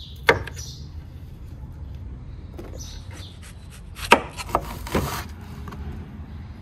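Kitchen knife chopping bell pepper and onion on a wooden cutting board: a few separate knocks of the blade against the board, the loudest about a third of a second in and just after four seconds.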